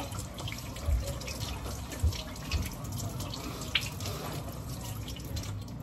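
Kitchen faucet running steadily into the sink while hands are washed under the stream, with a few light knocks.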